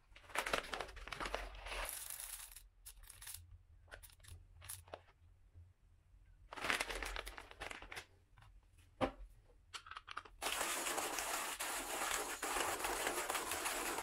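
Crinkling of a coffee bean bag being handled and beans being weighed into a hand coffee grinder on a scale, in two rustling spells with scattered small clicks. About ten seconds in, a loud steady noise starts and runs on.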